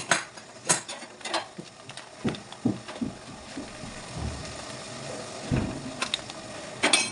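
Sharp clicks and knocks of things being handled on a kitchen counter: several in the first second or so, a couple of soft thumps midway, and a louder, denser cluster near the end as a foil packet is set down.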